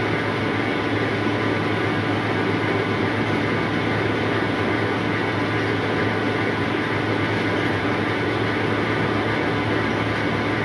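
Rice seed cleaning machine running: a steady low hum with an even rushing noise that does not change.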